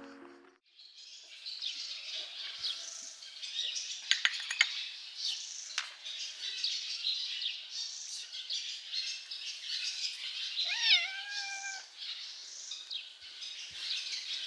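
Small birds chirping in a steady, busy chatter, with a kitten meowing once about eleven seconds in: a single meow that rises quickly and then holds for about a second. A few sharp clicks come around four seconds in.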